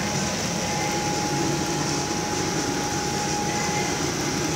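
Steady whirring, fan-like hum and hiss with a faint, unchanging whine.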